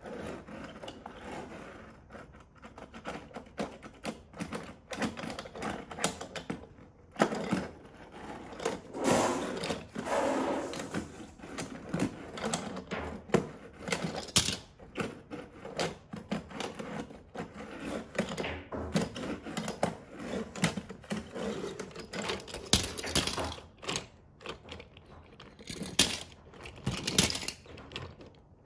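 Small diecast metal toy cars clicking and clattering against one another as they slide over a wooden tabletop, in an irregular run of clicks with louder bursts now and then.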